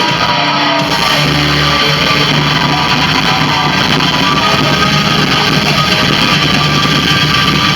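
Loud live rock band playing, guitar to the fore over bass and drums.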